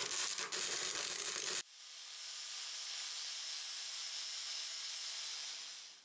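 MIG welder crackling as it lays a bead on a steel tube, with two brief breaks, stopping about a second and a half in. A steady high hiss follows until near the end.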